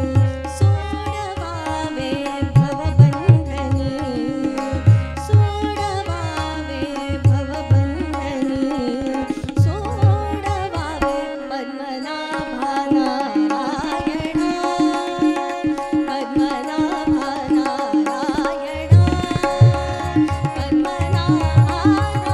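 Marathi devotional abhang performed by a woman singing to harmonium and tabla. The tabla's deep bass strokes keep a rhythm, drop out for several seconds past the middle while the harmonium holds steady notes, and come back near the end.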